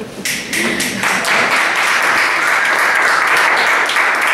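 A small audience applauding after a poem, a dense patter of claps that swells up about a second in.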